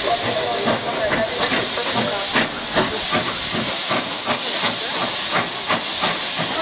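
Two steam locomotives double-heading a train, working under steam: a steady loud hiss of escaping steam with uneven exhaust chuffs, two or three a second.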